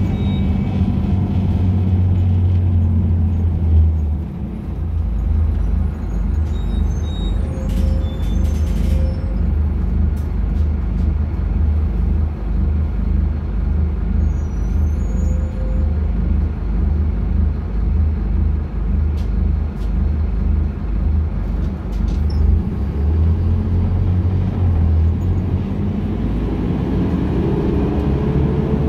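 Scania K250UB city bus's diesel engine heard from inside the cabin while under way: a steady low drone with road rumble. The deepest part of the engine note drops about four seconds in, there is a short hiss around eight seconds, and the engine note rises near the end as the bus picks up speed.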